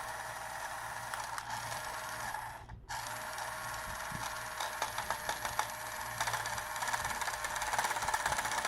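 A toy Lamborghini's spinning wheels driving a fidget spinner fast: a steady mechanical whir with a rattle. It cuts out briefly about two and a half seconds in, then starts again, with more clicking toward the end.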